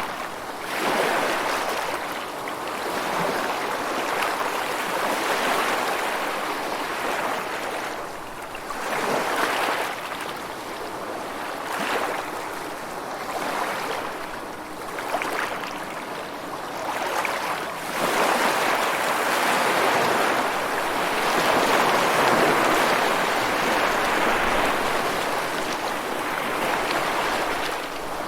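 Rushing water with no music, swelling and fading in surges every few seconds, with one long, loud swell in the second half.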